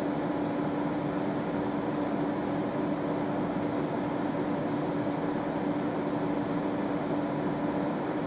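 Steady mechanical hum with a constant low tone, like a running air conditioner or fan, with no change through the whole stretch.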